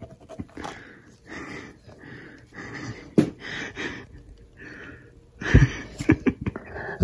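Dog breathing and sniffing in short puffs, about two a second, with a few sharp clicks and knocks near the end as it mouths a chew stick.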